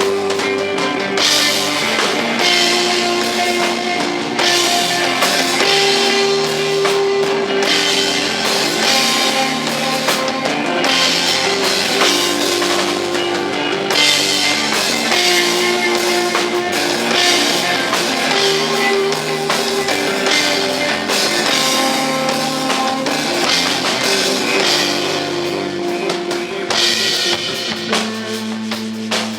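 A rock band playing live: a drum kit with cymbals swelling in and out over sustained electric guitar and bass notes, with no singing. The texture shifts shortly before the end.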